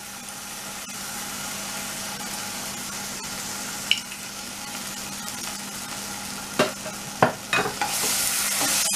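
Onions and green chilies sizzling in oil in a nonstick wok, a steady frying hiss. A few sharp knocks of a spatula against the pan come in the second half, and the sizzling gets louder near the end.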